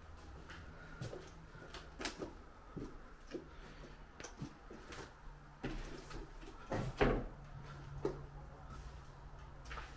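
Footsteps crunching and knocking over a debris-strewn floor: a string of irregular knocks, the loudest about seven seconds in.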